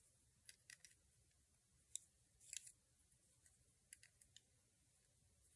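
Faint, scattered clicks and light scrapes of a metal loom hook against the plastic pegs of a round knitting loom as loops are worked over them, in small clusters about half a second, two seconds, two and a half seconds and four seconds in.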